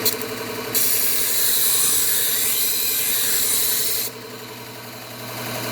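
Kitchen knife blade drawn across the running belt of a slow-speed belt sharpener, a bright hissing grind lasting about three seconds, over the steady hum of the sharpener's motor.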